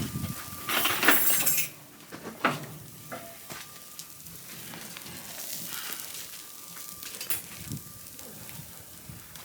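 Köfte (meatballs) sizzling in a frying pan, with scattered clinks of utensils against the pan. The hiss is loudest in the first couple of seconds, then settles to a quieter steady sizzle.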